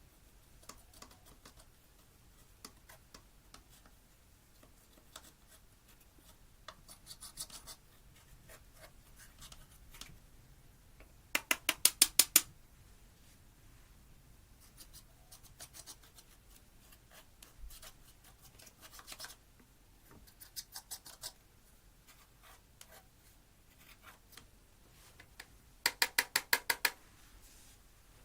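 Slime being squeezed and poked by hand, making scattered soft clicks and crackles. Two bursts of rapid popping clicks, about a dozen each, stand out, one around the middle and one near the end.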